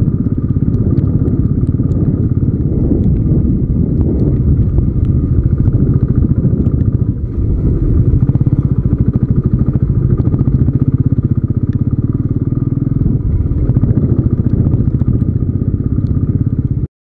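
Royal Enfield Classic 350's single-cylinder four-stroke engine running under way on a rough dirt track, with a steady, even thumping beat. It cuts off abruptly just before the end.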